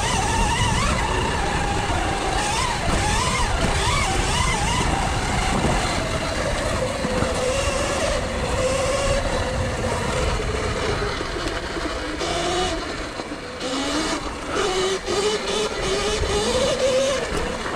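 Electric dirt bike's motor whining as it is ridden, its pitch rising and falling with the throttle, over a steady low rush of noise.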